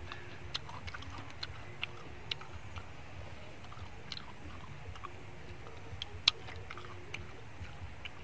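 Close-up eating of steamed snails: chewing, with scattered sharp clicks of the shells and toothpick as the meat is picked out, one louder click about six seconds in.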